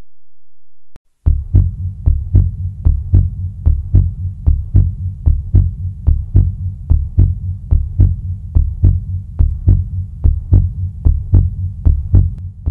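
Heartbeat sound effect: a loud, steady run of deep thumps, about two to three a second, starting about a second in.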